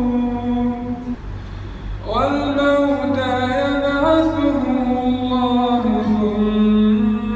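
A male reciter chanting the Quran in the melodic mujawwad style, holding long notes with slow steps in pitch. The voice breaks off about a second in for a breath and starts a new phrase about two seconds in with a rising swell.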